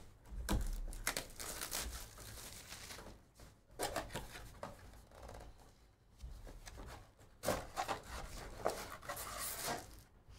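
Cardboard trading-card box being opened by hand: uneven tearing, scratching and rustling as its flaps are pulled open and the stack of foil card packs is slid out.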